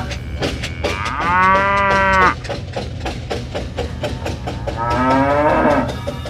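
A cow mooing twice: a long call, then a shorter one about three seconds later that drops in pitch at the end. Under it, a small motor runs steadily with a rapid ticking.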